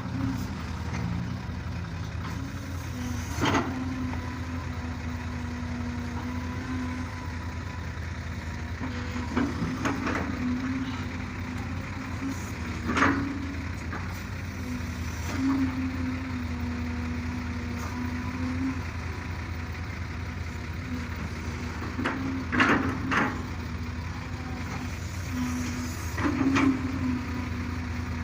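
Excavator working, its diesel engine running steadily with a whining tone that comes and goes as the hydraulics work. About eight sharp clanks are spread through it.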